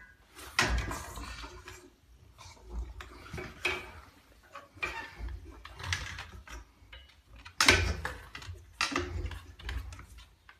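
A bamboo stick held crosswise in a French Bulldog puppy's mouth knocking against both sides of a wooden door frame over and over, with several sudden knocks a few seconds apart, the loudest about eight seconds in. Between the knocks come the dog's own noises.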